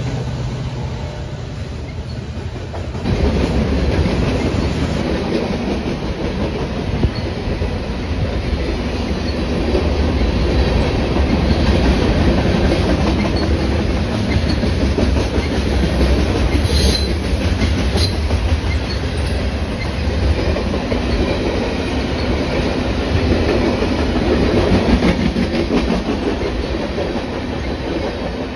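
Freight train cars rolling past close by: the steady noise of steel wheels on the rails, louder from about three seconds in, with two brief sharp metallic sounds about halfway through.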